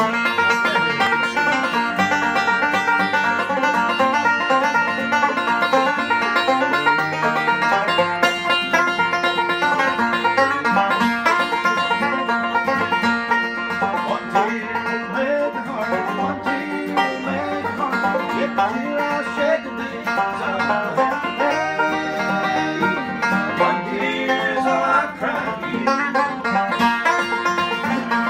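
Two banjos, one of them a 1936 Gibson PB-3 with its original flathead tone ring, picking a bluegrass tune together with a guitar underneath.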